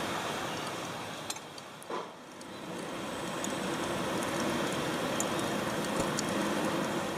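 Freshly lit charcoal fire burning in a brick pit, with sparse faint crackles over a steady rushing noise. A short knock about two seconds in.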